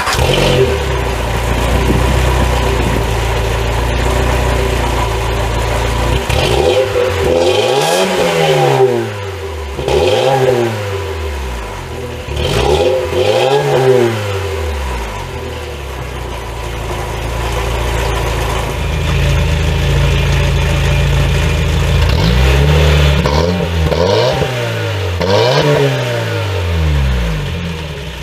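Skoda Felicia pickup's engine idling through a cheap home-made exhaust, revved up and let fall back several times: three single revs about a third of the way in, then a quicker run of revs near the end.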